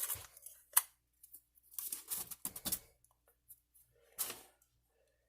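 Handling noises: a sharp click about a second in, then a run of short scrapes and rustles around two to three seconds in and one more just past four seconds.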